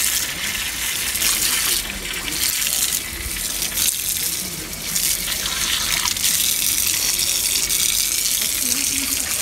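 Water gushing from an open metal tap and splashing onto a tiled floor and bare feet as they are rinsed. The flow is steady, with brief dips several times.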